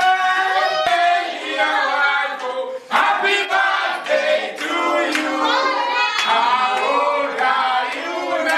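A group of people singing together loudly, many voices overlapping, with a short break about three seconds in.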